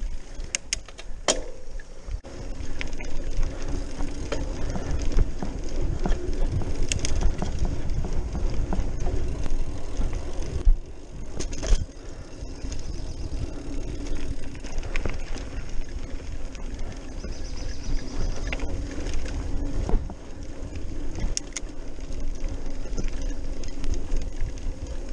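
A Trek Marlin 5 hardtail mountain bike rolling fast down a dirt trail: a steady low rumble of wind and tyres on the camera microphone, broken now and then by sharp rattles and clacks as the bike goes over bumps.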